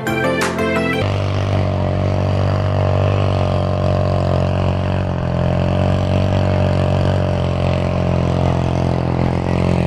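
Quad bike (ATV) engine running steadily at a near-constant speed, a low even drone. Background music cuts off about a second in.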